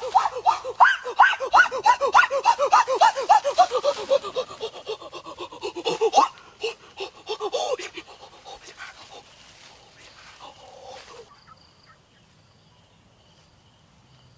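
Rapid, even panting in short pitched gasps, about four a second, loud at first and fading away over the next several seconds, with a few stray ones near the middle before it goes near quiet.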